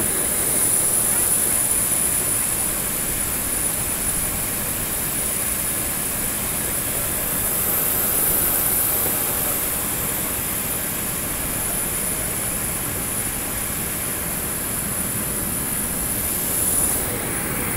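Aircraft turbine noise: a steady rush with a high-pitched whine held throughout, swelling briefly near the end.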